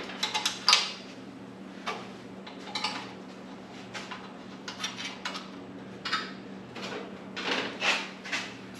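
Irregular metallic clinks and rattles of a fan shroud being worked by hand over a race car radiator's front mounts, with a few sharper knocks right at the start and again near the end.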